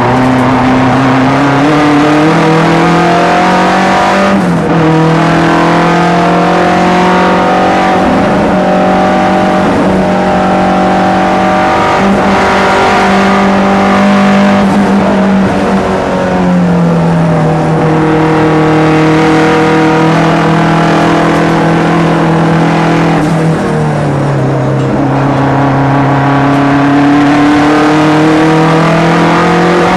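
Saab 900 race car's turbocharged four-cylinder engine at racing speed, heard from inside the cabin. The revs climb steadily, drop sharply at two upshifts about four and a half seconds in and near the three-quarter mark, and ease off about halfway through before pulling up again.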